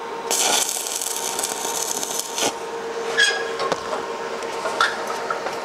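Stick-welding arc crackling and hissing for about two seconds as a tack weld is struck on steel tubing. A few light metallic clicks and taps follow.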